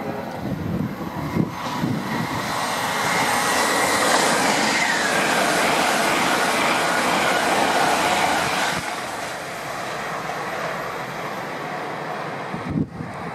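LNER Class 801 Azuma electric train passing at speed: a loud rush of wheels and air builds about two seconds in, with a whine that drops in pitch as it goes by. The noise falls away sharply about nine seconds in.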